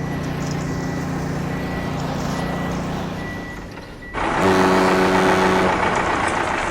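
Truck engine running steadily with a faint intermittent reversing beep, then a much louder pitched blast with hiss about four seconds in.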